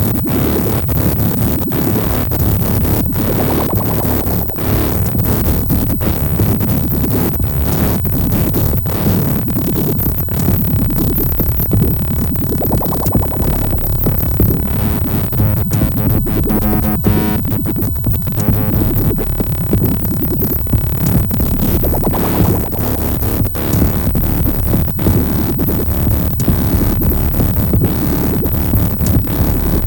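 Electronic music played on hardware synthesizers and a sequencer, with a steady pulse and dense, noisy synth textures that swell and thin out about halfway through.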